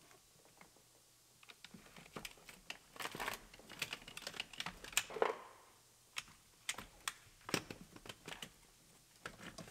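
Plastic wiring-harness connectors and the plastic electrical box under a pickup's dash clicking and rattling as they are unplugged and worked loose by hand: a run of small sharp clicks that gets busier after about a second and a half, with a short rustle about five seconds in.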